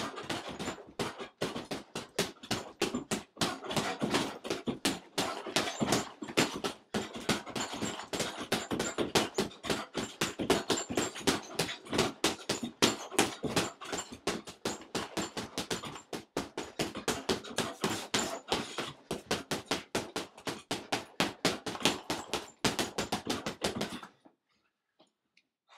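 A long run of sharp knocks or strikes, about four or five a second and uneven in loudness, which stops suddenly near the end.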